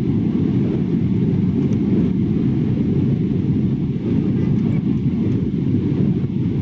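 Steady low roar of an airliner in flight, engine and airflow noise as heard inside the passenger cabin.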